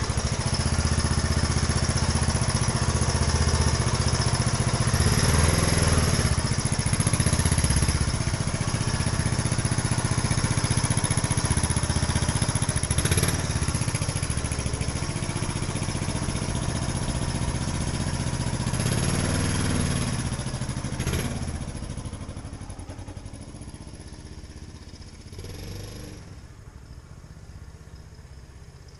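2001 Suzuki Savage's 652 cc single-cylinder four-stroke engine running steadily after its rebuild, its exhaust swelling briefly a couple of times. Over the last several seconds the sound fades away.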